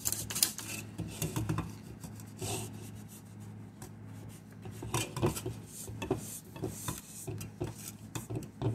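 A rag rubbing and scrubbing over the rusty metal of a Cub Cadet 1882 PTO clutch coil housing and plate, in irregular short strokes with light metal knocks as the part shifts, over a steady low hum.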